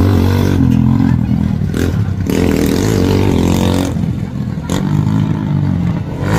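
Motorcycle engine of an off-road tricycle revving hard under load, its pitch repeatedly rising and falling.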